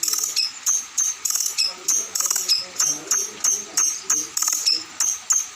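A songbird's fast, evenly repeated high chirps, about three a second, each a short sharp note dipping slightly in pitch, from a bird-song training recording (masteran).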